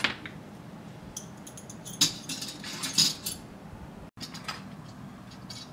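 Stainless-steel toy cutlery clinking against small metal toy dishes: a few sharp metallic clinks, the loudest about two and three seconds in.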